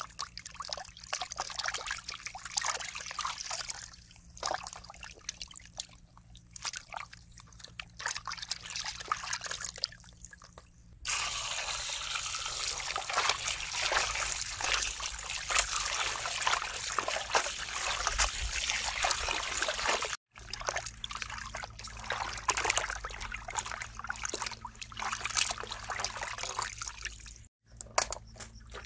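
Hands sloshing and rubbing raw quail in a metal basin of water, with irregular splashes and drips. About eleven seconds in, a steady stream of water starts pouring over the birds as they are rinsed, and it runs on, broken by two brief cuts.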